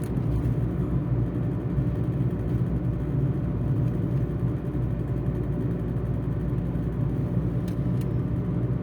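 Car moving along a street: a steady low engine and road rumble.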